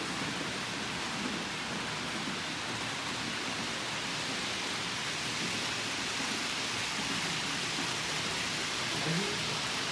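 Model trains running on a model railway layout, a steady rain-like rushing noise with no clear rhythm. A brief pitched sound comes about nine seconds in.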